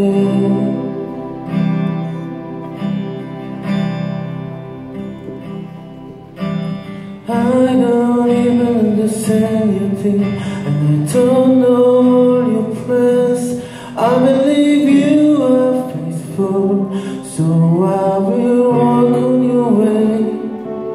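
A live worship song on acoustic guitar and keyboard. The first several seconds are a quieter stretch of held chords, and then a man's singing voice comes back in about seven seconds in and carries on over the accompaniment.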